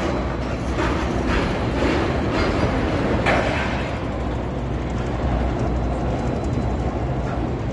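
Steady low rumble of container-terminal machinery during cargo operations, with a series of soft clanks about every half second in the first three or four seconds.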